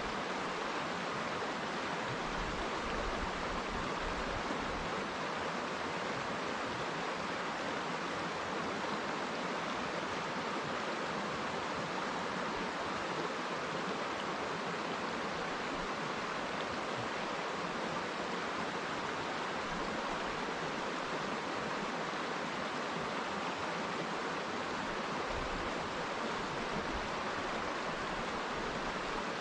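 River water running over rocks, a steady, even rush with no breaks.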